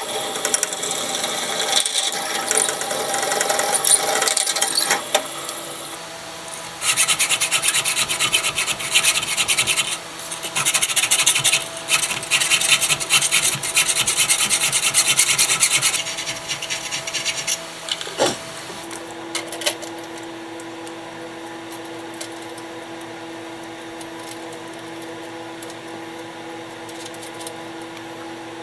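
Metal file rasping out a hole in square metal tubing, back-and-forth strokes in runs of several seconds with short breaks. After about two-thirds of the way through the filing stops and only a quieter steady hum remains.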